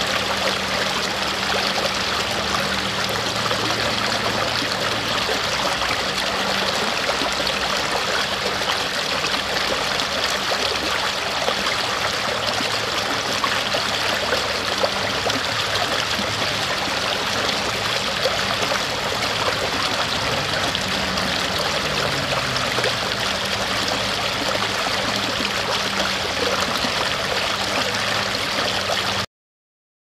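Shallow stream rushing and splashing over rocks, a steady run of water that cuts off abruptly near the end.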